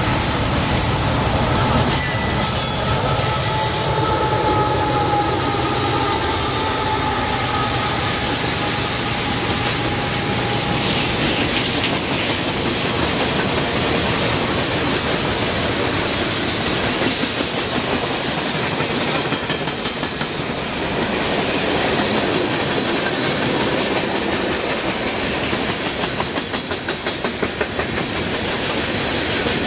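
Freight train cars rolling past close by: steel wheels clattering over the rail joints, with a high-pitched wheel squeal in the first ten seconds or so. Near the end the clatter turns into an even, rhythmic clickety-clack.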